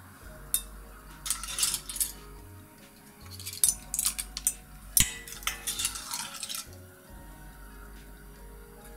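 Metal spoon and tongs clinking and scraping against a frying pan and a ceramic serving bowl as clams and vegetables are plated, a run of light irregular clinks that dies away about two-thirds of the way through.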